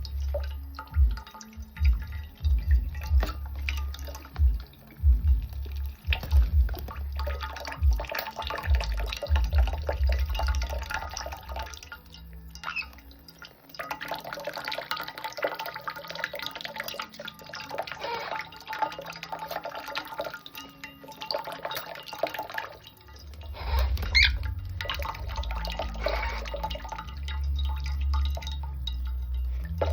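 Water splashing and dripping as a Nanday conure bathes, with irregular low thumps at the start and again near the end.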